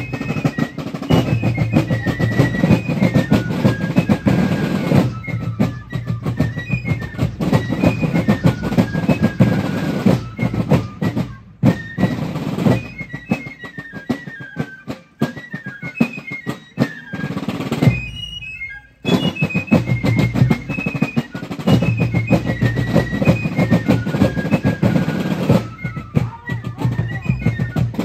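Fife and drum corps playing a march: fifes carry a high, stepping melody over rolling snare drums and bass drum beats. The playing breaks off briefly about two-thirds of the way through, then starts again.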